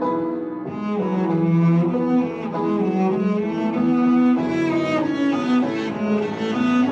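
Cello played with the bow: a slow melody of held notes with vibrato, each note lasting about half a second to a second.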